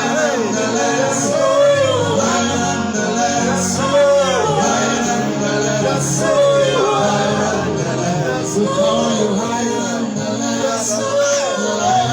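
Worship music: a male voice singing or vocalising wordlessly over sustained keyboard pads, in slow gospel style.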